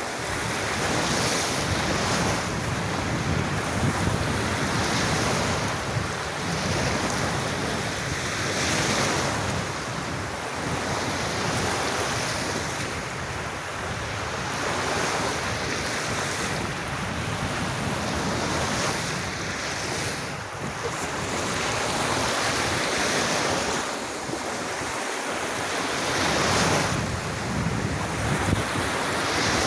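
Calm sea waves washing onto a sandy beach: a steady surf wash that swells and fades every few seconds.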